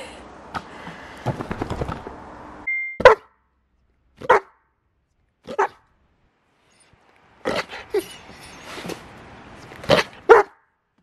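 Akita–Keeshond mix dog barking: about eight single barks spaced a second or more apart, the first the loudest. Before the barks, softer shuffling and rustling as the dog moves about.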